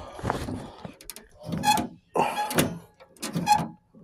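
A person's voice talking in short phrases that the transcript does not pick up, with a couple of small clicks about a second in.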